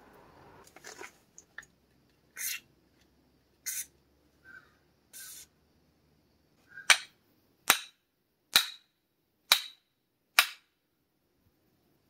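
Three or four short hisses of an aerosol lubricant being sprayed onto the shaft of a small oil-pump supercharger. These are followed by five sharp ball-peen hammer blows on the metal, about one a second, driving at a shaft that is seized in its housing after it got hot.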